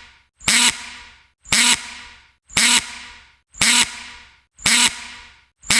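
Drill gear sound effect: a short, harsh mechanical burst with a ringing tail that fades out, repeated evenly about once a second, six times.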